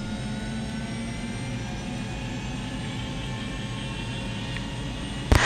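Helicopter turbine engine running steadily just after a good start, settling at idle: a constant whine of several steady tones over a low rumble. A sharp click near the end.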